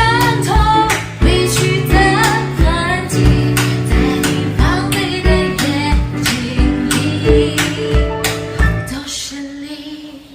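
A pop ballad with a woman singing over guitar and a steady drum beat, fading out near the end.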